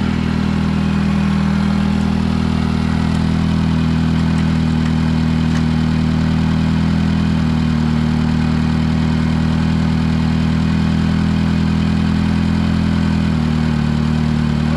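Satoh S-550G tractor's four-cylinder gas engine running steadily, just brought back to life after sitting neglected. Its note shifts slightly about halfway through and again near the end.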